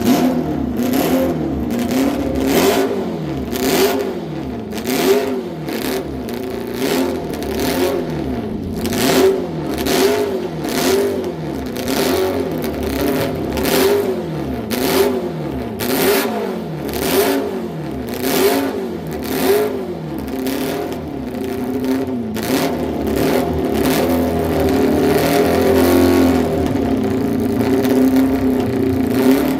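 Classic motorcycle engine being blipped over and over, its revs rising and falling about once a second, then held steadier at higher revs near the end.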